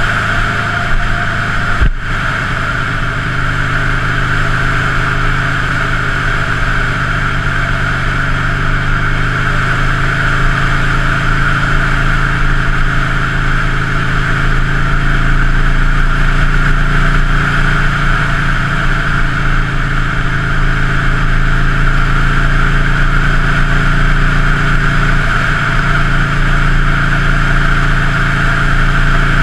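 Buell Lightning XB9's air-cooled V-twin running steadily through a Jardine muffler fitted with a quiet core, with a brief drop in sound about two seconds in.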